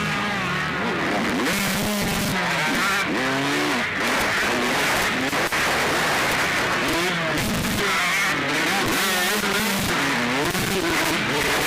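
Several motocross bikes racing, their engines revving up and down in quick rises and falls over one another, under a constant harsh hiss.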